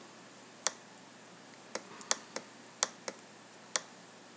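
Sharp, irregular clicks, about seven in all, from working a computer's input devices while digitally painting, over a faint steady low hum.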